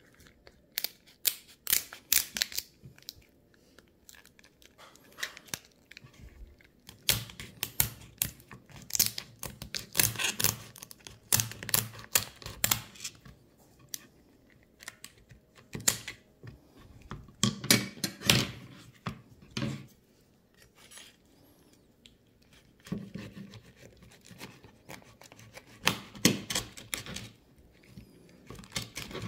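Kitchen shears cutting through a raw lobster tail's shell: several runs of quick, sharp snips and cracks separated by short pauses.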